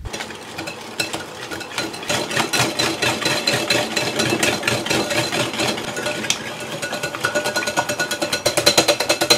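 Wire balloon whisk beating eggs into creamed butter and sugar in a glass bowl, its wires clicking and scraping against the glass several times a second. The strokes grow louder and more even near the end as the mixture turns smooth and foamy.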